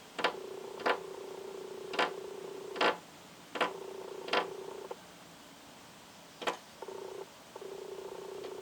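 A small bird's beak tapping on window glass: about seven sharp knocks at irregular intervals. Under them runs a steady low hum that cuts out and back in several times.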